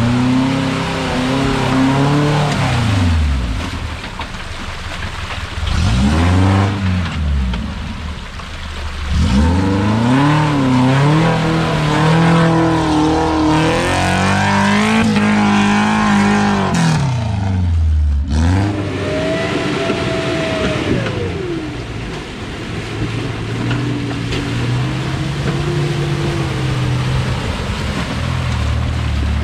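Off-road 4x4 engine revving up and down repeatedly under load, its pitch rising and falling over and over, easing off briefly about eighteen seconds in.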